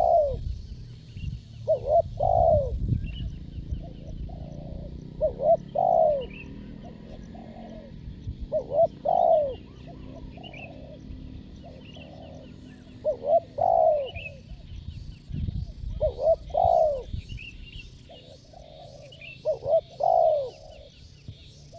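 Spotted dove (tekukur) cooing: a short phrase of several coos, repeated about every three to four seconds, seven phrases in all.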